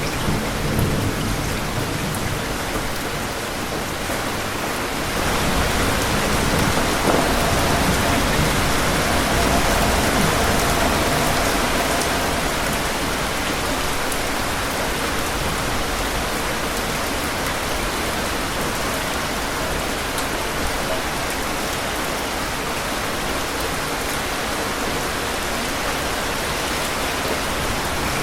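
Heavy rain falling steadily, with thunder rumbling low beneath it. The sound swells about five seconds in and eases after several seconds.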